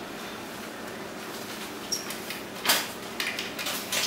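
Handling noise from the plastic underside of a Technics turntable: a few light clicks and rubs as fingers work at a part, the loudest about two-thirds of the way through, over a low hiss.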